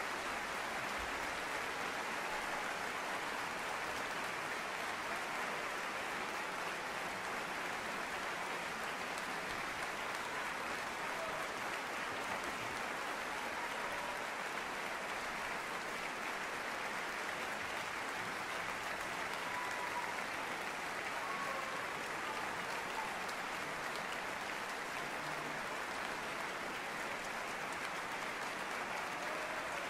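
A large concert-hall audience applauding steadily, a long, even ovation at the end of an orchestral performance.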